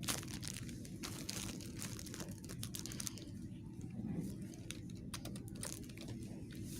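Crinkling and rustling of packaging being handled, with many small light clicks and crackles.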